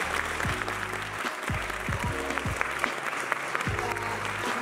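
Audience applauding in a cinema hall, many hands clapping together, over background music with a steady deep bass beat.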